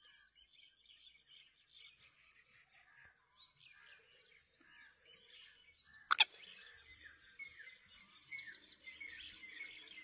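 Faint chorus of small birds chirping and twittering, with one sharp click about six seconds in; the chirping grows a little louder near the end.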